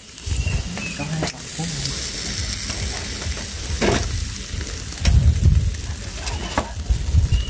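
Marinated, pre-boiled pig head halves sizzling on a wire grill over charcoal, with a few sharp pops. The sizzle is the basting marinade drying on the hot meat, the sign that the roasting is nearly done.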